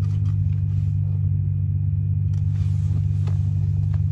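Car subwoofer playing a steady 40 Hz test tone, a deep continuous hum with strong overtones above it. The amplifier gain is up around the point where the waveform turns fuzzy and starts to clip.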